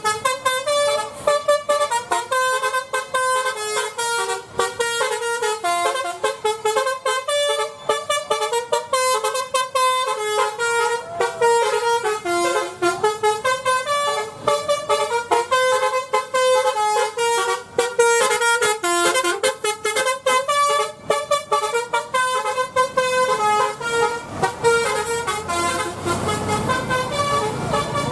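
Basuri 'telolet' multi-tone bus horn playing a fast melody: a long unbroken run of short pitched horn notes jumping from one note to the next several times a second.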